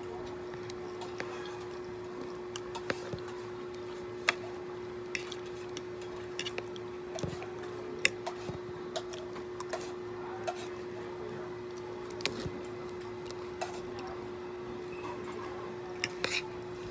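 Eating sounds: a metal spoon and fork clicking and scraping against a plastic plate at irregular moments, with soft wet chewing, over a steady hum.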